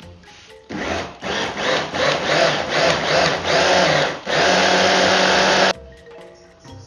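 A hand-blender motor driving a mini food-processor chopper bowl, pulsed in about seven short bursts, then run steadily for about a second and a half before cutting off suddenly. The blades are working an egg into crumbly shortcrust pastry of flour and butter.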